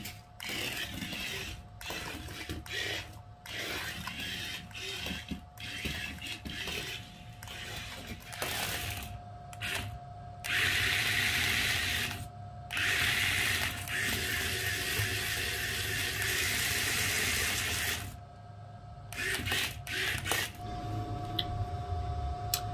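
Small electric gear motors of a Sinovan Mini Cool Virtuosity RC stunt car whirring in stop-start bursts as it drives and spins, with a longer steady run from about ten to eighteen seconds in. The motors jump straight to full speed at the slightest stick movement.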